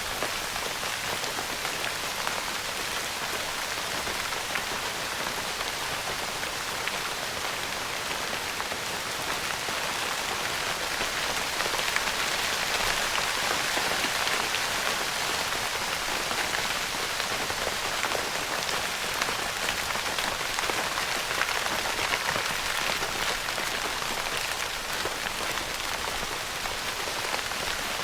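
Steady rain pattering on a tent's fabric, a dense hiss of many small drop ticks, growing a little heavier through the middle.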